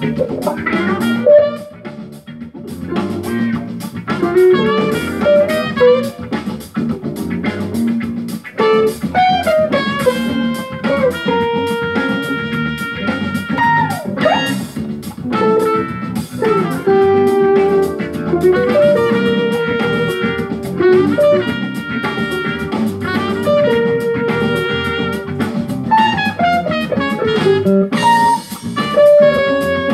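Electric guitar, a Stratocaster-style solid body, playing a single-note jazz-funk lead with held notes and string bends, over a backing track with drums.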